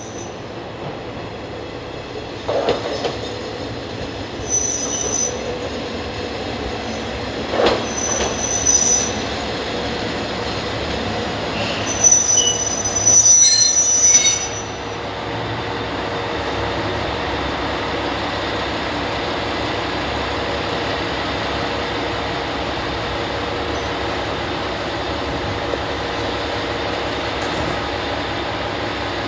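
Heisei Chikuho Railway 500-series single-car diesel railcar pulling slowly into a station, with several short, high-pitched squeals from its wheels and brakes, the longest and loudest a little before halfway. It then comes to a stop, and its diesel engine idles steadily to the end.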